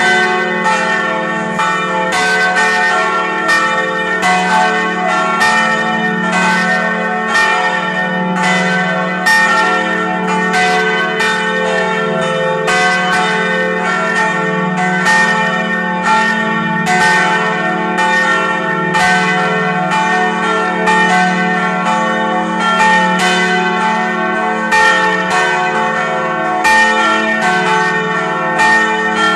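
Several church bells of St. Stanislaus in Vilnius ringing together in a full peal: overlapping strikes about twice a second over a sustained low hum from the largest bell.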